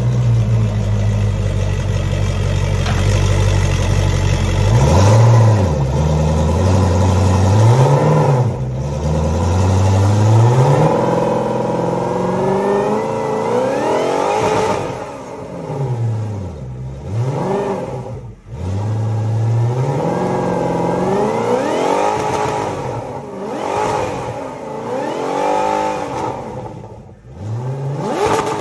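Mercury 200 hp Pro XS V8 four-stroke outboard running out of the water on a garden-hose flush, revved up and down repeatedly. Its pitch climbs and falls with each blip of the throttle after a steadier first few seconds.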